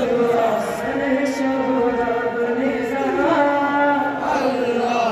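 Men chanting a Shia Muharram noha (mourning lament) in long held notes that slide from one pitch to the next.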